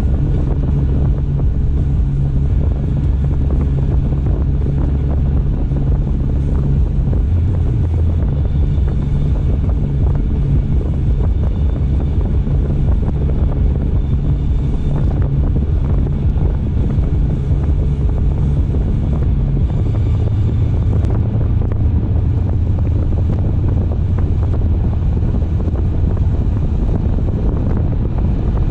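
Car driving steadily: a constant low rumble of engine and tyres on the road with wind noise, the low hum shifting in pitch about twenty seconds in.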